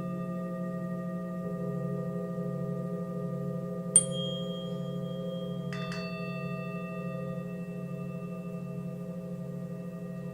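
Singing bowls ringing with a steady, slightly wavering low hum and several higher tones, while a tuning fork is struck about four seconds in with a sharp high ping that rings on. A second strike near six seconds adds a cluster of higher ringing tones.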